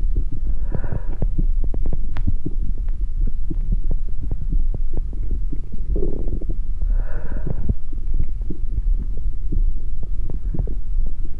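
Amplified heart sounds: a low throbbing with dense, irregular crackling and clicking. A short swell of higher, hissing noise comes about a second in and again about seven seconds in.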